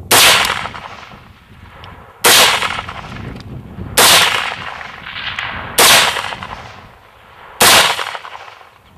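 Scoped rifle fired five times at a steady pace, about one shot every two seconds, each sharp report followed by a fading echo.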